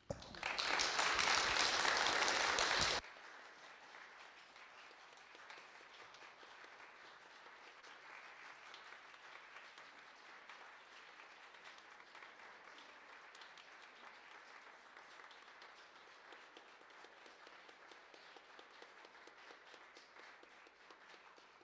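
A congregation applauding. Loud clapping for about three seconds, then the sound drops suddenly to softer, continuing applause full of separate claps, which fades out near the end.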